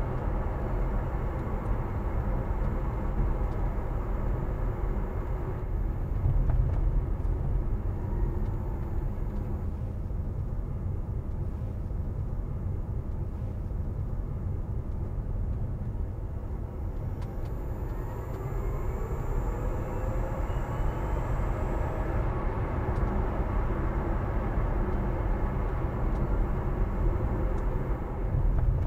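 Inside the cabin of a Mitsubishi Outlander PHEV driving on electric power: a steady low rumble of tyre and road noise. A faint whine rises in pitch for a few seconds past the middle.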